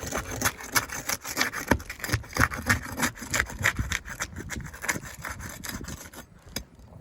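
A tool scraping and prying under asphalt roof shingles to work the nails loose: rapid, irregular scrapes and clicks that thin out and grow quieter near the end.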